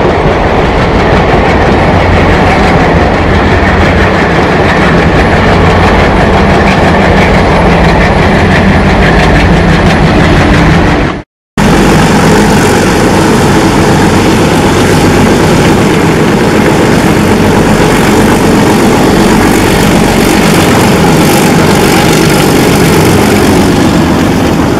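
ALCo WDM-3A diesel locomotive's 16-cylinder engine chugging loudly as it hauls a rake of passenger coaches past. The sound drops out for a moment about eleven seconds in, then carries on.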